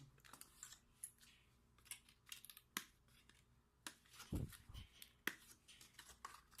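Small clicks, taps and rustles of hands handling a new smartphone and its packaging, with a dull bump a little past four seconds in.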